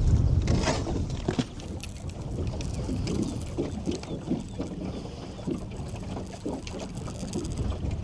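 Wind buffeting the microphone, strongest at first, with small clicks and scrapes as a rod's reel seat is tightened down with channel-lock pliers.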